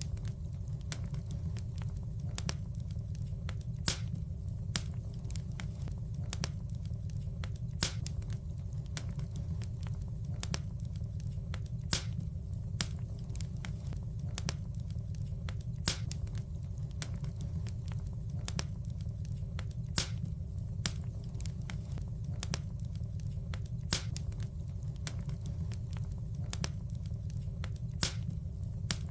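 Wood fire in a fireplace crackling over a steady low rumble of the flames, with many small snaps and a sharper pop about every four seconds.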